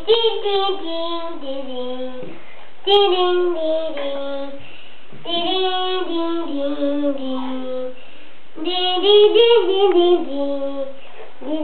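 A child singing a simple tune in four short phrases, each stepping down in pitch, with brief pauses between them.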